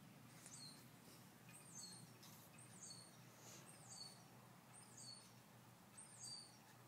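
Faint bird calls: a short, high note sliding downward, repeated six times about once a second.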